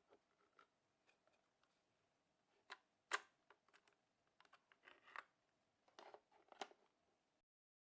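Near silence broken by scattered faint clicks and light knocks, the loudest about three seconds in and a small flurry around six seconds, then the sound cuts off to dead silence shortly before the end.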